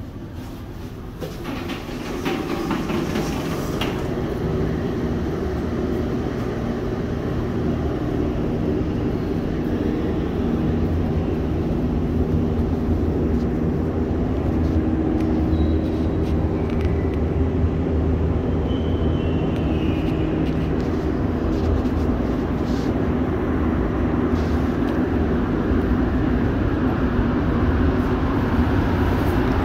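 Montreal Metro AZUR rubber-tyred train running: a steady low rumble that grows a little louder, with humming motor tones and brief high whines that step in pitch about halfway through.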